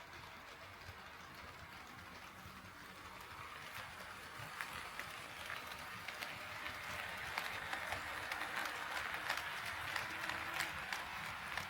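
HO-scale model train running on the track, its wheels clicking rapidly over the rail joints with a hissing rumble. It grows louder from about four seconds in as the train comes closer.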